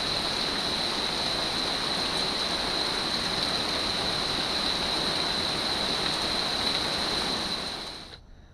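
Heavy rain falling steadily, a dense hiss with a thin, steady high-pitched whine over it; it cuts off suddenly near the end.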